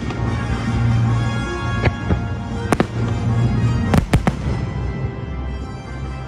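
Fireworks going off over the show's music: four sharp bangs, about two, three and four seconds in, the last two close together.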